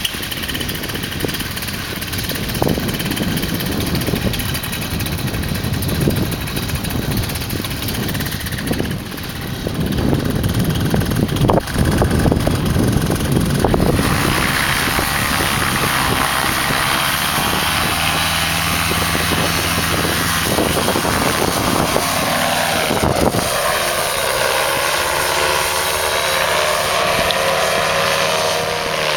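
Paramotor (backpack engine driving a pusher propeller): for about the first half, wind buffets the microphone over the engine running low. About halfway through, the engine is throttled up to full power for the takeoff run, becoming a steady, loud propeller drone. Its pitch bends as the pilot lifts off and climbs away.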